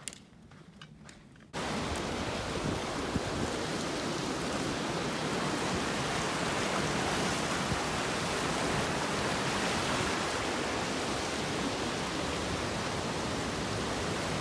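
A few faint footsteps on a trail, then about a second and a half in, a sudden change to the loud, steady rush of a mountain river spilling over granite slabs.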